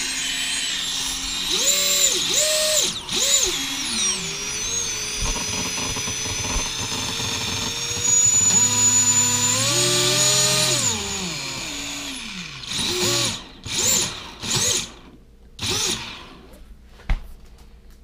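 ImmersionRC Vortex racing quadcopter's brushless motors spun up on the bench in throttle blips, a whine that rises and falls with each blip: three quick ones, a longer held run, then four more short ones, with a sharp click near the end. The owner suspects a failing ESC behind a noise from the front motor.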